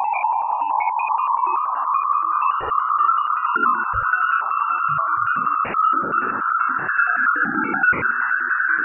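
Sonification of radio waves recorded by the Juno spacecraft's Waves instrument during its Ganymede flyby, shifted into the range of hearing: a band of hiss that slowly rises in pitch, chopped by rapid breaks and joined by patches of lower, warbling tones after a few seconds.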